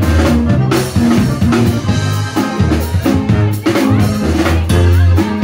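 Live Mexican regional band playing: a sousaphone bass line under guitar and accordion, with a drum kit keeping the beat.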